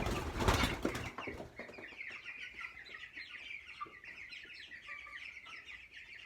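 Young broiler chickens peeping and cheeping in a flock, many short high calls overlapping. A burst of rustling noise comes in the first second and a half.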